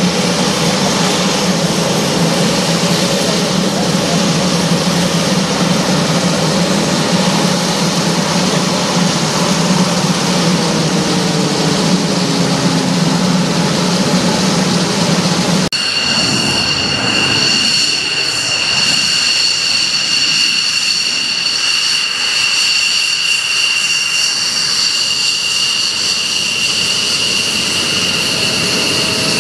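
Embraer A-29 Super Tucano turboprop taxiing, its engine and propeller running with a steady low drone that falls slightly in pitch as it passes. About sixteen seconds in, the sound switches abruptly to an F-16 fighter's jet engine at taxi power, a steady high whine.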